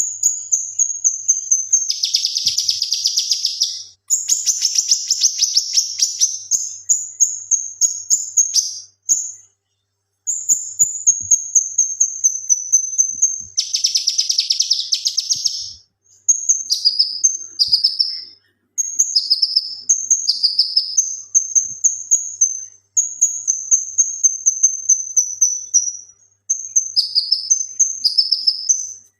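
Male cucak kinoi singing continuously in high, thin trilled phrases, broken twice by dense, harsh rapid-fire rattles (the 'tembakan') about two and fourteen seconds in, then short chirps that drop in pitch.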